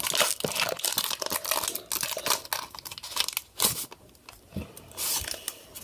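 Foil wrapper of a Pokémon booster pack crinkling and tearing as it is opened by hand, in irregular crackles. There is a quieter stretch about four seconds in, then another burst of crinkling.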